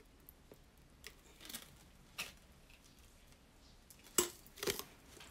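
A few light clicks and taps spaced out over several seconds, the loudest pair about four seconds in.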